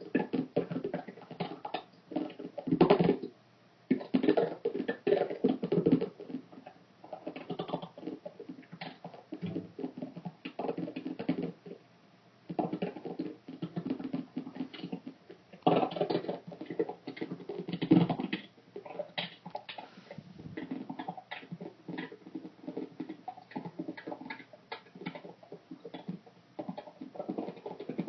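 Rapid, irregular tapping and scratching in dense clusters, with brief gaps about three and twelve seconds in. The source is an unexplained noise in the house that keeps going with the computer muted.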